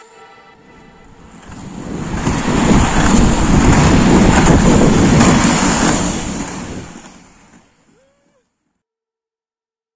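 Wind buffeting the camera microphone along with the rumble of inline skate wheels rolling on asphalt. The noise fades in over the first couple of seconds and fades out about eight seconds in.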